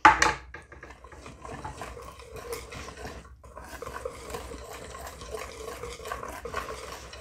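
Wire whisk beating thick pancake batter in a bowl: steady wet slapping and ticking of the tines against the bowl, with a brief louder clatter right at the start and a short pause about three seconds in.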